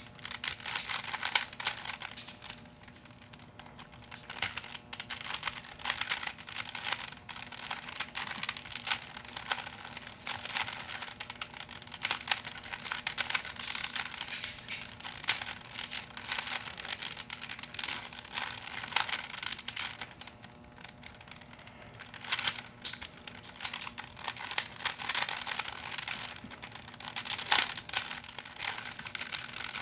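A Rubik's cube faced with glued-on LEGO 2x2 tiles being turned rapidly by hand: a dense, continuous run of plastic clicks and scraping as the layers snap round, with two short lulls between runs of turns. The cube is stiff to turn.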